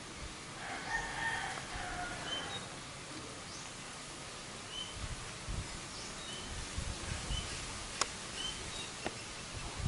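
Small birds chirping in short high notes, scattered every second or so, with a longer, fuller bird call about a second in and a single sharp click near the end.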